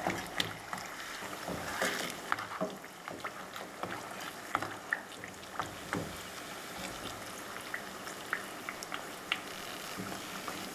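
Corn tortillas frying in hot oil in a pot: a steady sizzle with many small scattered pops and clicks as they finish browning on their second side.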